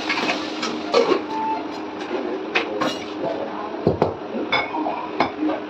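Cookware clattering on a gas stovetop: a string of knocks and metallic clinks as pans and utensils are moved, with a heavier clunk about four seconds in as the iron tawa is handled, over a steady hum.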